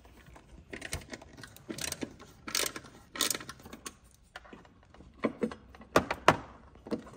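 Irregular metal clicks, clinks and short scrapes of bolts being undone and lifted out of a C8 Corvette's rear hatch support bracket, with a few louder clicks about halfway through and near the end.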